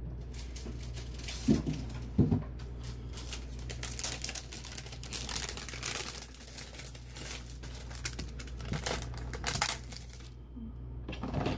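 Crinkling and rustling of plastic as a clear stamp set in its plastic sheet is sorted through and handled, with a few light taps. The rustling dies down near the end.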